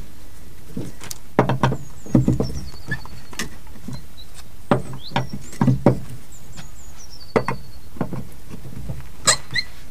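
A metal tire spanner knocking and clunking on a trailer's wheel nuts in a series of irregular knocks as the nuts are cracked loose. A songbird sings twice in the background.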